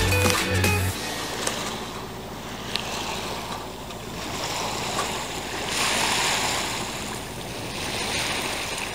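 Water rushing and splashing along the hull of a small sailboat under way, with wind on the microphone, the wash swelling and easing a few times. Background music stops about a second in.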